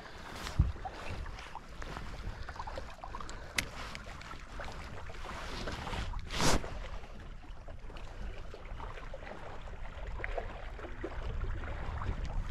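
Wind on the microphone and small waves lapping at a fishing boat, with a few light knocks and one louder thump about six and a half seconds in.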